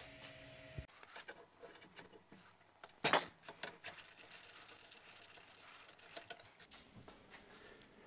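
Scattered metallic clicks and taps of hands and tools on a furnace's gas line fittings, a yellow flex connector on black iron pipe, as the line is readied for disconnecting. The sharpest click comes about three seconds in. A low steady hum stops abruptly just under a second in.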